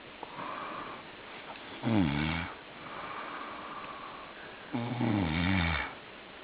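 A man snoring in his sleep: two loud snores, about two seconds in and again near five seconds, the second one longer, with softer breathing between them.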